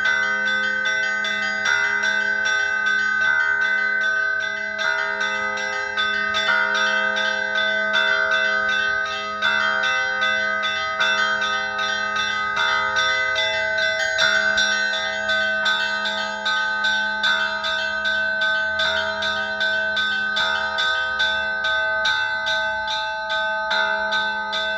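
Russian Orthodox church bells ringing together: rapid strokes of small bells over a low, steady bell tone, with the middle bells changing in a repeating pattern about every second and a half.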